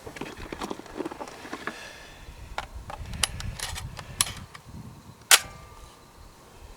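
A scatter of light clicks and knocks, then one sharp, much louder shotgun shot about five seconds in, fired at doves.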